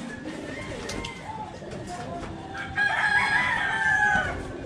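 A rooster crows once, a single long call of about a second and a half starting nearly three seconds in, dropping in pitch as it ends.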